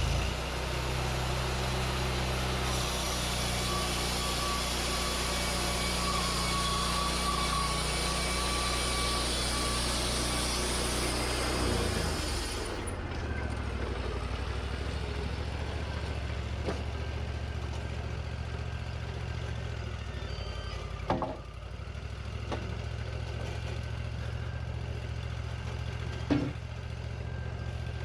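LT40 portable band sawmill running. For about the first twelve seconds a steady hiss sits over the engine, typical of the band blade cutting through a pine log. The hiss then stops, the engine runs on at a lower pitch, and there are two sharp knocks later on.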